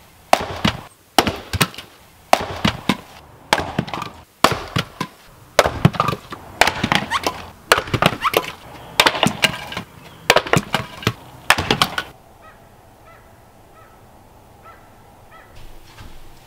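Splitting maul striking firewood on a chopping block: a quick series of sharp blows, most with the crack of the wood splitting. The strikes stop about twelve seconds in.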